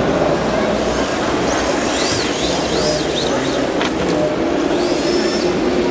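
Electric RC drift cars' motors whining high, the pitch rising and falling several times in quick arcs as the throttle is worked, over a steady loud exhibition-hall din with a low hum.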